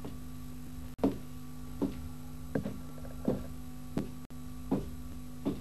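Footsteps of a person walking across a wooden floor, about seven evenly paced steps, over a steady low electrical hum.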